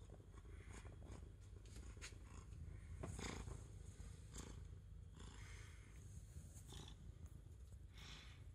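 A domestic cat purring faintly and steadily, close to the microphone, with small rustles of fur and movement.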